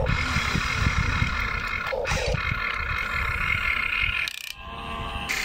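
Small electric motors of an RC excavator whining steadily as the boom and bucket move, over a crackling rumble of stones and dirt. The sound breaks off briefly about four seconds in.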